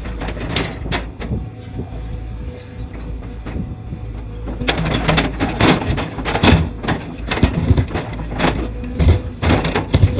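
A 20-ton-class hydraulic excavator's diesel engine runs steadily. From about halfway through, a quick irregular series of knocks and scrapes comes in, which is the bucket working the soil of the slope face.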